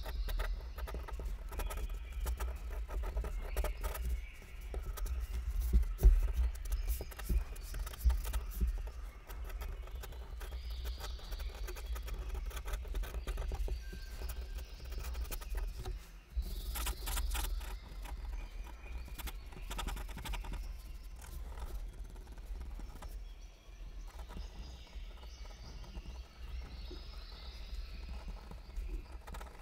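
Pen nib scratching and tapping on paper in quick, dense sketching strokes, over a low rumble.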